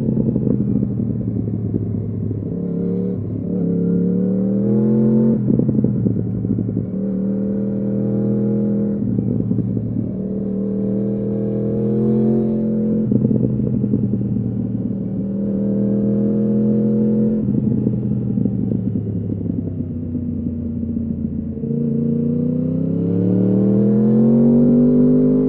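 2015 Yamaha R1's crossplane inline-four running through an Akrapovič exhaust under way: the engine note repeatedly climbs and then drops sharply with gear changes, sinks as the throttle eases off, and climbs again near the end.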